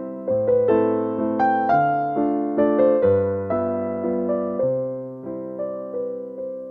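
Background music played on a piano-style keyboard: notes struck and fading over a bass line that changes every second or so.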